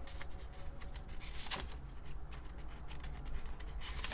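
Plastic calculator keycaps being handled and pressed onto the keyboard, giving scattered light clicks and rustling, the sharpest click about a second and a half in.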